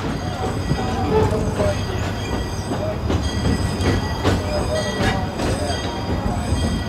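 Cedar Point and Lake Erie Railroad's narrow-gauge train cars running over the track: a steady rumble with a thin high wheel squeal, and sharp rail-joint clicks now and then.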